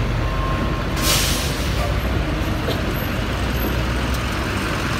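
Heavy truck engines running in street traffic, with a short air-brake hiss about a second in.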